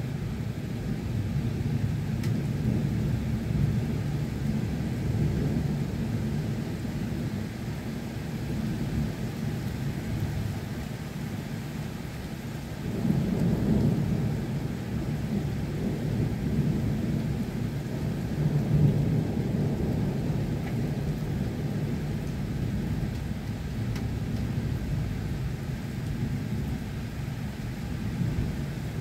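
Steady rain with low rumbling thunder, the rumble swelling about halfway through and again at about two-thirds of the way.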